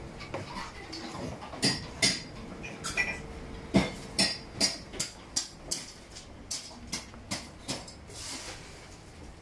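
A quick run of sharp clicks and knocks, about two or three a second at their steadiest, stopping near the end.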